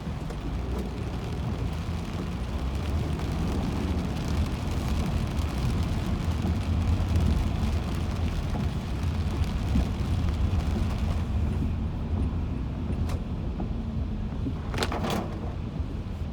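Car driving on a rain-soaked highway: a steady low road and engine rumble under the hiss of tyres on wet pavement, with a couple of brief clicks near the end.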